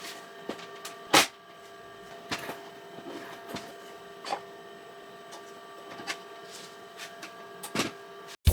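3D printer running, its stepper motors giving several steady tones, with scattered sharp clicks and ticks throughout.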